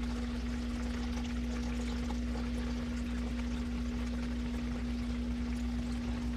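Aquarium gravel siphon draining tank water through its hose into a container below, a steady pouring splash that runs without a break, with a constant low hum under it.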